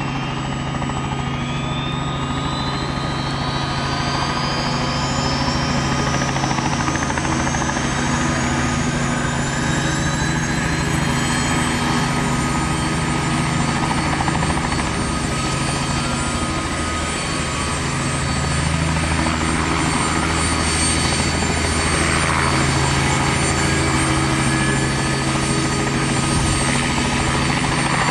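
Boeing CH-47F Chinook starting up, its tandem rotors turning slowly: the twin turboshaft engines' whine rises in pitch over the first ten seconds or so, then holds steady over a low, even rotor and engine drone.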